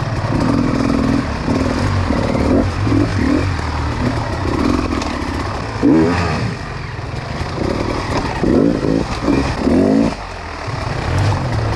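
Enduro dirt bike engine revving in repeated short throttle bursts, sharpest about six seconds in and several quick ones near the end.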